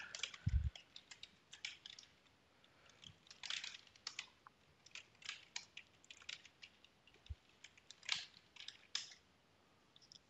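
Typing on a computer keyboard: faint key clicks in short, irregular clusters as a command is typed.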